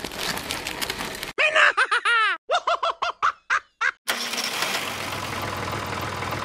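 A high-pitched, cartoon-style giggle, about eight short notes that each rise and fall in pitch, followed from about four seconds in by a miniature tractor's engine running steadily with a low hum.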